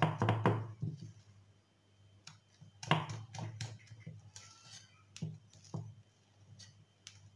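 Wire whisk beating cake batter in a glass bowl: its wires click and scrape against the glass in quick, uneven strokes, with a louder knock about three seconds in.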